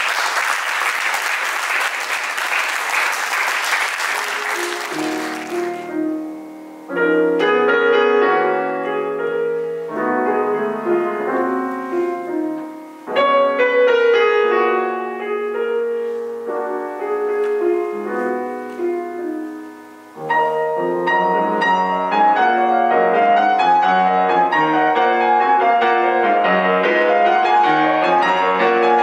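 Audience applauding for the first few seconds, then a grand piano played solo. The piano starts in slow phrases separated by brief pauses and becomes fuller and busier about two-thirds of the way through.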